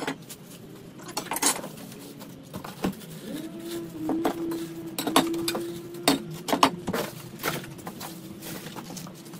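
Parts and packaging of a steel fire pit being unpacked and handled: irregular clinks, knocks and rustling. A steady low tone runs from about three seconds in until near the end.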